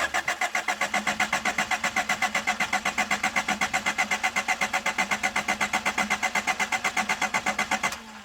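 Starter motor cranking the first-generation Honda CRX's engine, with an even, rapid chugging of about eight pulses a second. It stops abruptly about eight seconds in without the engine catching.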